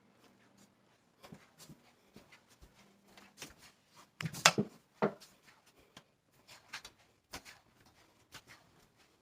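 Scattered small clicks, taps and rustles of objects being handled and set down, with a louder clatter of a few sharp knocks about four to five seconds in.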